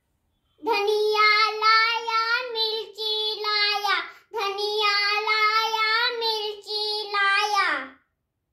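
A young boy singing alone, unaccompanied, in two long phrases with a short break about four seconds in.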